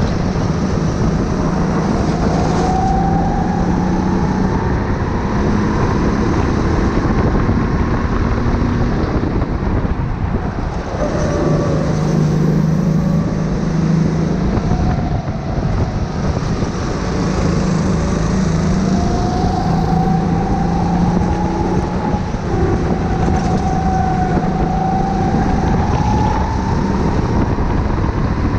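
Kart engine heard onboard at speed, its pitch climbing steadily as it revs out on the straights and dropping back sharply when the driver lifts for corners, a few times over.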